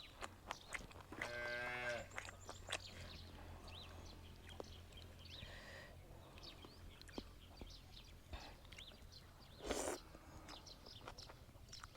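A cow mooing once, about a second in, with small birds chirping and chewing clicks throughout, and a short loud noisy burst near the end.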